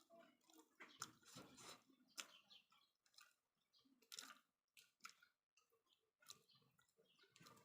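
Faint close-up chewing of boiled chayote root, with irregular soft mouth clicks and smacks.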